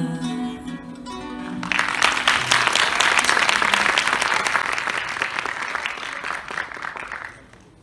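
Last sustained notes of an acoustic guitar and oud ensemble, then, about two seconds in, an audience breaks into applause that dies away near the end.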